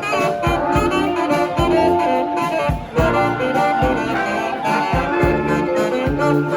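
A brass band playing live: several horns sounding held notes and lines together over low drum hits that keep the beat.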